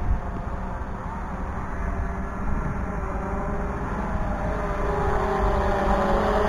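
Drone motor and propeller whine, several steady tones drifting slowly in pitch and growing a little louder near the end, over wind rumble on the microphone.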